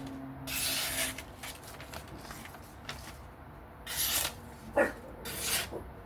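Freshly sharpened hollow-ground folding knife making slicing cuts: three short hissing strokes, about a second in, around four seconds and near the end, with a sharp click just before five seconds. The edge is cutting cleanly, without snagging.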